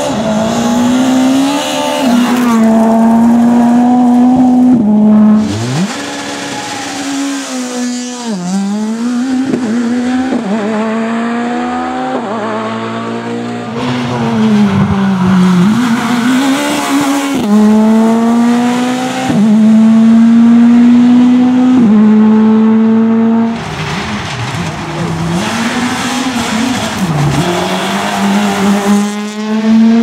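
Škoda Fabia S2000 rally car's naturally aspirated 2.0-litre four-cylinder engine at full throttle on several passes in a row: the note climbs through the gears and drops on lifts and downshifts, with tyre noise mixed in.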